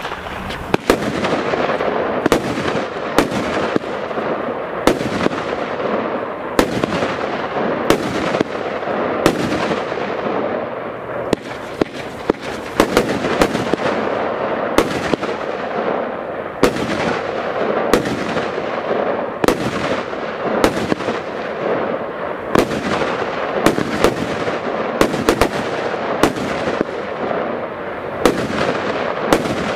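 Lesli Brutus salute battery firing a long, steady run of shots, each ending in a sharp bang, about one a second. A continuous hiss and crackle from the rising shots runs underneath.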